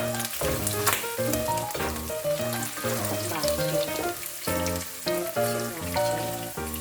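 Background music with a steady melody and bass, over food sizzling as it fries in a pan.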